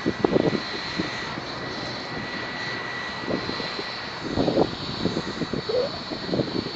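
Distant jet airliner on final approach, a faint steady whine, under irregular low rumbling gusts that are strongest about four and a half seconds in.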